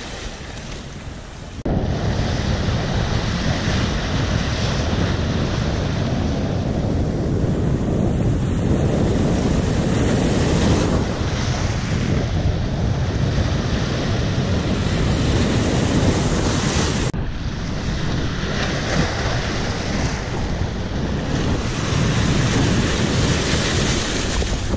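Wind buffeting the microphone over the steady wash of sea surf. The rumble jumps up sharply about two seconds in.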